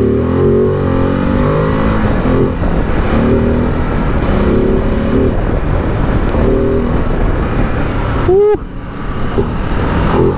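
Ducati DesertX Rally's 937 cc Testastretta V-twin running under throttle while riding, its exhaust note rising and falling with the throttle. There is a short sharp drop in level about eight and a half seconds in.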